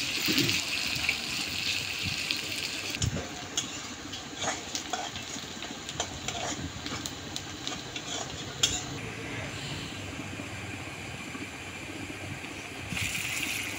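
Sliced onions sizzling in hot oil in a metal karahi while a metal spatula stirs them. The spatula scrapes and clicks against the pan many times through the middle. The sizzle is strongest in the first few seconds and again near the end.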